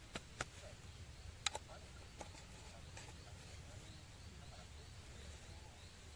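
Small wood fire crackling in a BushBox LF twig stove: a few scattered sharp pops, the loudest about one and a half seconds in, over a low steady rumble. A faint, high chirp repeats a few times a second through the second half.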